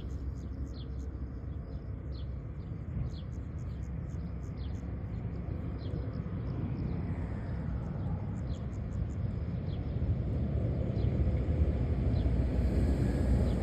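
Low outdoor rumble that grows steadily louder, with faint short high chirps repeating about twice a second, thinning out later.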